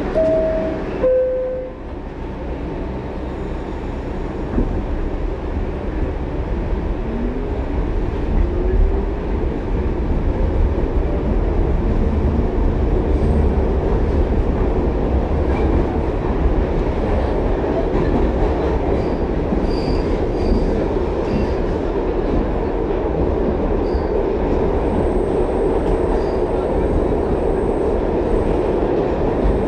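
Inside an R62A subway car: a falling two-note chime right at the start, then the train gets under way. The running noise builds to a steady loud rumble of wheels on rail, with a motor whine rising in pitch a few seconds in.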